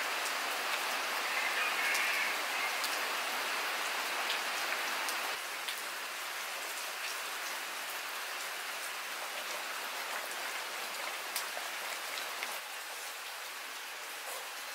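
Steady rain falling, with scattered drops ticking; the hiss steps down a little about five seconds in.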